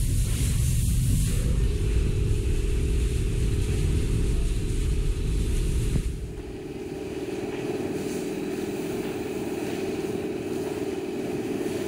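Water from a hose spraying and splashing against a pickup's side and front wheel, over a steady motor hum that sets in about a second and a half in. About six seconds in the deep rumble drops away and the sound gets quieter.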